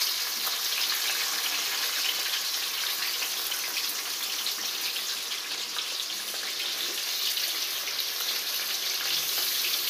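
Marinated chicken leg pieces frying in hot oil in a wide metal pan, just put in: a steady sizzling hiss with many small crackling pops.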